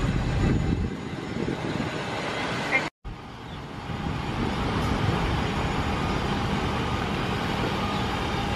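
Steady rumble of idling vehicle engines with outdoor traffic noise; the sound drops out briefly about three seconds in.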